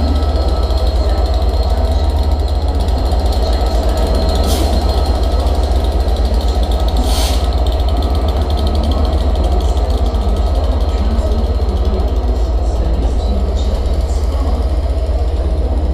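Class 67 diesel locomotive's two-stroke V12 diesel engine running steadily, a loud, deep, even drone with a faint steady whine over it. Two brief higher-pitched noises come about four and seven seconds in.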